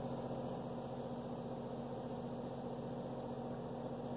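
A steady machinery hum, several pitches held level without change, with a faint high pulsing buzz above it.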